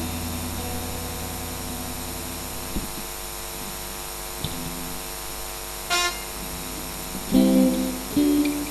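Soft keyboard notes and chords played between songs through the church sound system, over a steady mains hum that cuts off with a click about three seconds in; a few louder chords come near the end.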